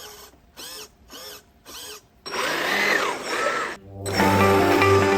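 Small electric motors whirring in short moves, four brief pulses whose pitch rises and falls, then a louder whirring run of about a second and a half; guitar music starts about four seconds in.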